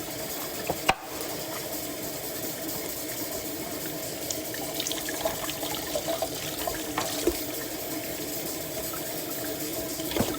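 Kitchen tap running cold water over a ribeye steak that is being rinsed in the sink, a steady splashing with a few small knocks.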